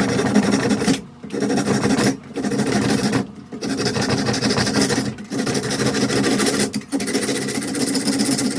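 Saw cutting off the proud end of a wooden axe handle, a loud steady rasp that breaks off briefly five times, about every one to two seconds.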